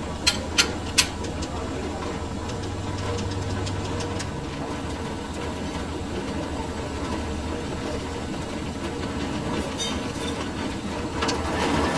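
Lathe running with a steady low motor hum, three sharp metallic knocks in quick succession about a second in, and the machine noise growing louder near the end.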